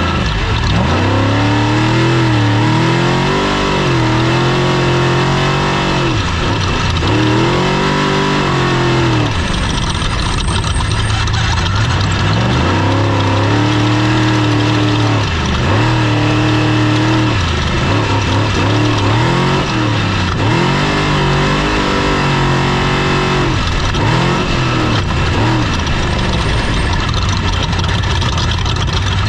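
Off-road race vehicle's engine being driven hard, its note climbing and dropping over and over as the throttle is worked, with short dips between the climbs.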